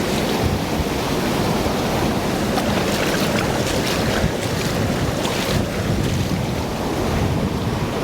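Wind buffeting the microphone over a steady rush of water, with no break.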